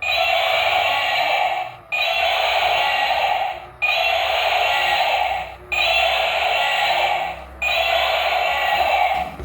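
A battery-powered toy vehicle's electronic sound chip playing a buzzy sound effect over and over: five identical bursts, one about every two seconds, with a short break between each.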